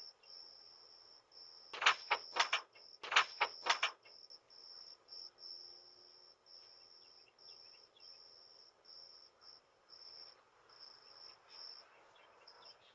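Crickets chirping in a steady high trill broken into short pulses. About two seconds in and again a second later come two quick runs of about four sharp knocks, the loudest sounds.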